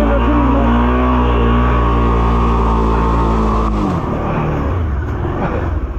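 Honda Transalp motorcycle engine held at steady high revs for nearly four seconds, the rear wheel spinning and digging into deep mud, then the revs drop off suddenly to a lower, uneven run.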